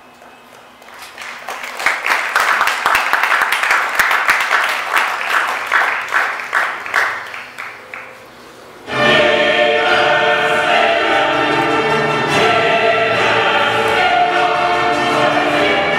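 A rhythmic pulsing hiss swells up and dies away. About nine seconds in, choral music with orchestra starts abruptly and holds loud and sustained.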